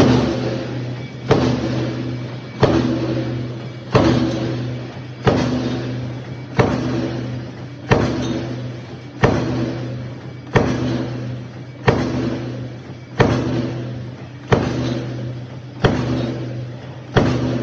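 Press machine cycling steadily: a sharp stroke about every 1.3 seconds, each followed by a fading rush of noise, over a steady motor hum.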